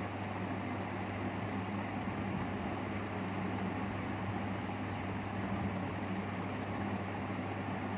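Steady whirring drone of a small electric fan or blower motor, with a constant low hum and no change in speed.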